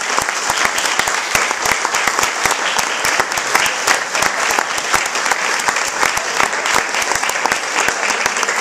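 An audience applauding: many hands clapping, dense and steady.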